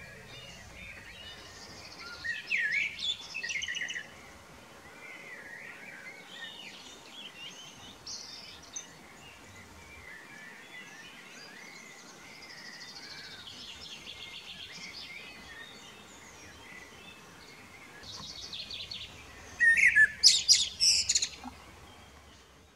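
Male common blackbird singing, with loud phrases about two seconds in and again near the end, each reaching up into high twittering notes, and quieter birdsong between.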